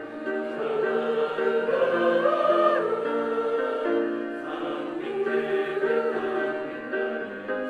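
Church choir singing a sacred anthem in several parts, with long held notes that move together from chord to chord.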